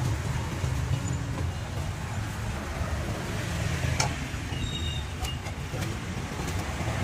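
Steady low rumble of outdoor street background noise, with a sharp click about four seconds in.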